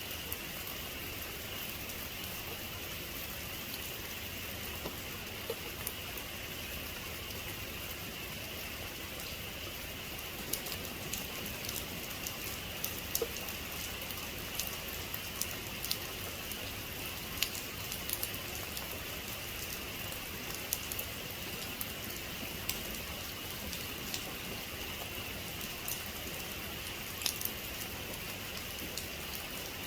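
Heavy rain falling steadily as an even hiss, with individual drops ticking sharply on a surface, the ticks coming more often from about a third of the way in.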